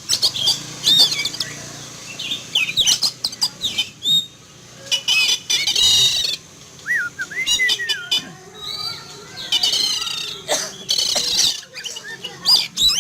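Oriental magpie-robin (kacer) singing continuously: a fast stream of varied whistles and chattering notes, with a few lower whistled glides about halfway through.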